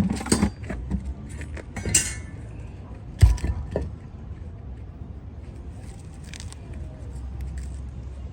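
Metal clinking and knocking, several sharp strikes in the first two seconds and a heavy thump about three seconds in, then a steady low rumble.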